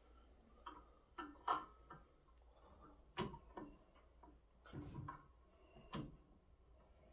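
Scattered light clicks and knocks of the metal parts of a hand-set clay pigeon thrower being handled and fitted together, about half a dozen over several seconds.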